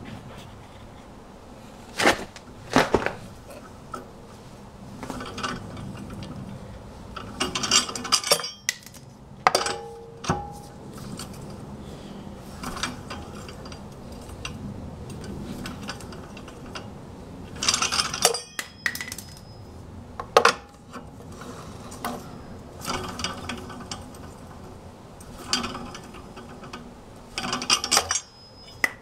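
Lug nuts being undone from a car's wheel studs: scattered metallic clinks and rattles in short clusters, with a few sharp clanks among them.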